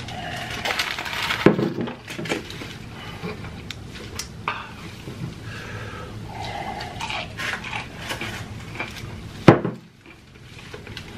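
Close-up eating sounds: chewing and crunching into fried chicken, with sips from a glass of water and scattered clicks and taps. One loud sharp crunch near the end.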